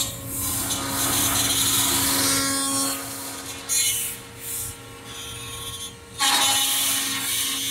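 Five-axis CNC router spindle cutting a large plastic part. A steady whine runs under a loud, hissing cutting noise that comes and goes in surges as the tool engages, with the strongest surge near the end.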